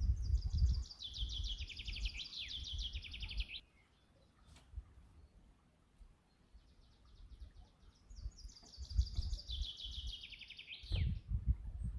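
A songbird sings twice: each song is a fast trill of notes stepping down in pitch for about three seconds, the second beginning about eight and a half seconds in. A low rumble runs under the songs.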